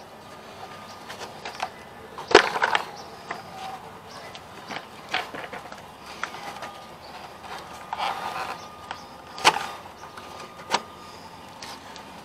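Scattered clicks and knocks of plastic and metal parts being handled as the air cleaner cover is worked off a riding mower's Briggs & Stratton engine, with one sharp knock about two seconds in.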